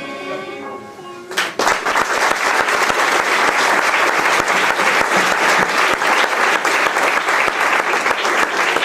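The last held note of the song's accompaniment fades out. About a second and a half in, a large audience breaks into loud applause that keeps going.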